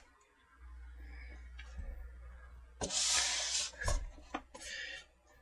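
Cardboard packaging tearing: one loud rip lasting about a second, near the middle, between light rustling, with a short knock just after.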